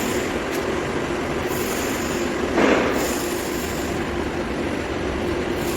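Steady machine noise, a continuous rushing sound with a steady hum, swelling briefly louder about two and a half seconds in.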